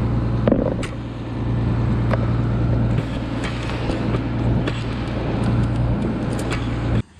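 An engine running steadily with a low drone, with scattered light clicks and knocks; it cuts off suddenly near the end.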